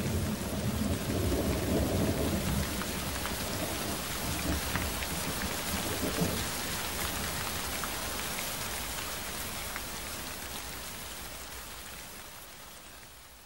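Steady heavy rain with a rumble of thunder in the first couple of seconds and a second, fainter rumble about six seconds in, fading out near the end.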